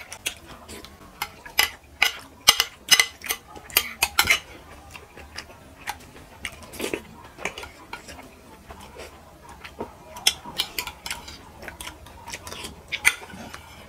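Metal spoons clinking and scraping against ceramic plates as two people scoop up khichuri, in quick irregular clicks that bunch together in the first few seconds and again near the end.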